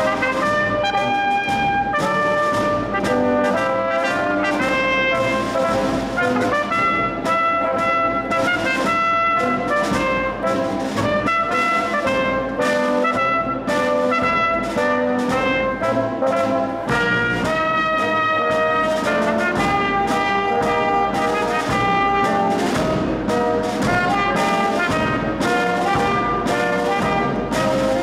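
Military-style brass band playing live: saxophones, trumpets, baritone horns and a sousaphone carry the tune over a steady snare and bass drum beat.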